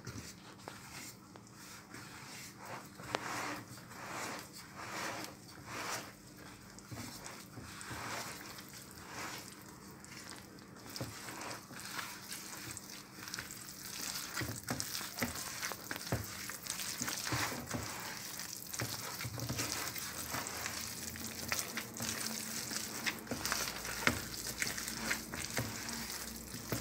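A gloved hand kneading flour into a wet, oily dough in a plastic bowl: repeated soft rustling, squishing strokes, about one a second at first and closer together later.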